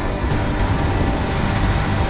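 Motorcycle running steadily at road speed, its engine drone mixed with rushing road noise.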